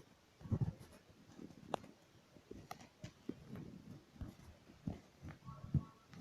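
Soft, irregular thumps and knocks close to the microphone, with faint handling noise between them.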